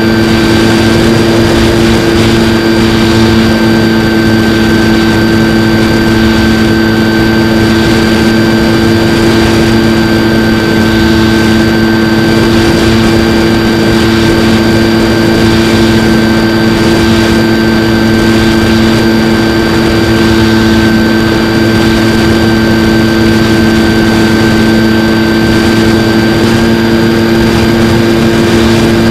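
Skywalker X-8 flying wing's pusher motor and propeller heard from the onboard camera in cruising flight: a loud, steady drone at constant pitch, with the rush of air over the airframe.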